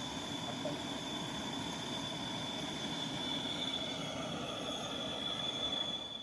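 A kettle whistling steadily on a camping gas stove, one high, unbroken note over the burner's low rushing hiss.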